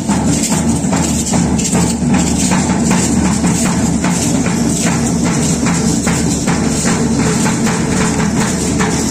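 Loud percussive music with a steady beat of jingling strikes, about three a second.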